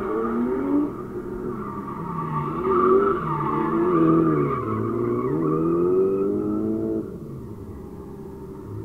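Drift cars sliding through a corner, their engines revving up and down with the throttle over tyre squeal; the sound drops off sharply about seven seconds in.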